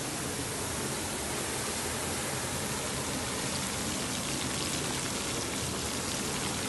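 Steady rushing of a waterfall, mixed with chicken lollipops sizzling and crackling as they deep-fry in hot oil in a kadai.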